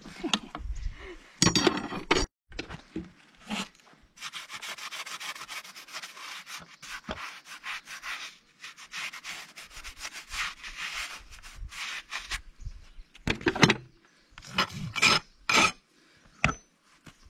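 A steady scraping or rubbing sound lasting about eight seconds, with separate knocks and rustles before and after it.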